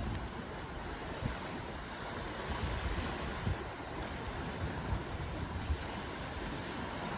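Choppy sea water washing onto a gravel shore, a steady wash of surf with wind buffeting the microphone in irregular low gusts.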